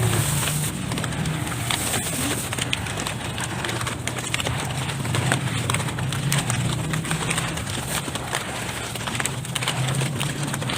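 Dry dirt being crumbled and mixed by hand: a dense, irregular stream of small crackles and ticks over a steady low hum.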